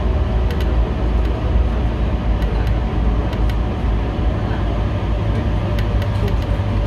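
A city bus in motion, with a steady low rumble of engine and road and light, irregular rattling clicks.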